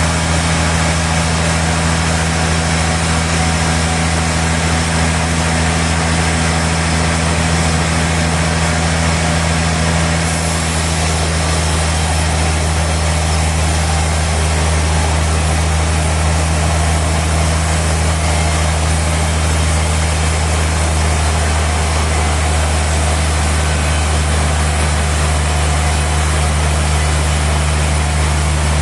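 Sawmill machinery running steadily: a continuous engine-like drone with a constant low hum, which shifts slightly about ten seconds in.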